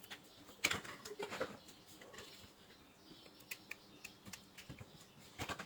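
Small sharp clicks and snips of hand tools working on a USB cable, a louder cluster about a second in and another near the end, as the cable is cut open to inspect its wires.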